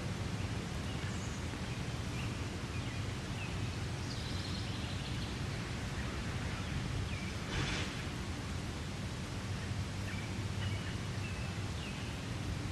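Steady outdoor background noise with a low rumble, faint short chirps, and a brief rustle about seven and a half seconds in.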